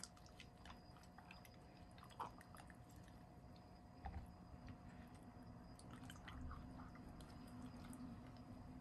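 Faint wet squishing and small sticky clicks of fingers working a spice marinade paste under the skin of a raw whole chicken.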